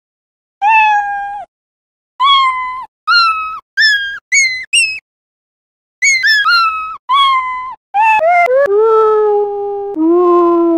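Scratch's built-in 'Meow' cat sound effect, played over and over, with the pitch and speed changed each time. The first meows come out higher and shorter each time until they are brief squeaks. From about six seconds in the meow is slowed down, stepping lower into long, deep, drawn-out meows.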